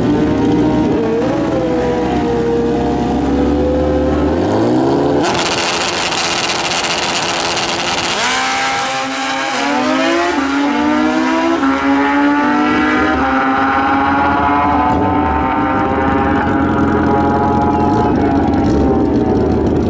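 Two drag-racing motorcycles held at a steady rev on the start line, then launched at full throttle about five seconds in. The engines climb in pitch through the gears, several times over, as the bikes pull away down the track.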